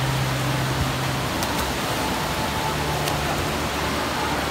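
Water gushing out of water slide run-outs into a pool, a steady loud rush of churning water with a low hum that comes and goes.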